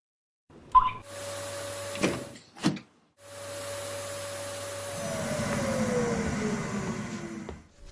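MIGO Ascender stair-climbing robot vacuum's motor running with a steady whine and hiss, in short clips broken by abrupt silent gaps and a few clicks. About five seconds in, a second whine falls steadily in pitch over a low rumble, then stops shortly before the end.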